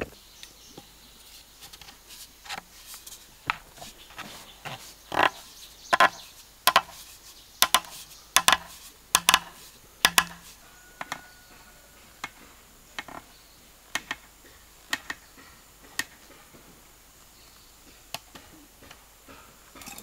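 A run of sharp knocks from repeated strikes, irregular and about one to two a second, loudest and closest together in the middle, then thinning to single knocks about once a second.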